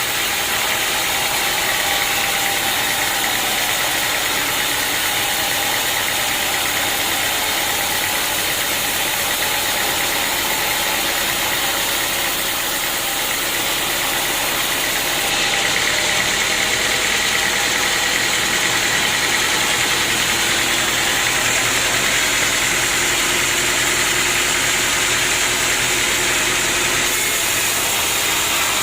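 Sawmill machinery running steadily, a dense mechanical noise with a few steady tones that shifts slightly about halfway through.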